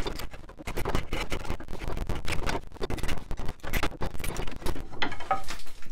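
Draw knife shaving a wooden chair spindle held in a shave horse: a run of short, irregular scraping strokes as the wood is roughed down to shape.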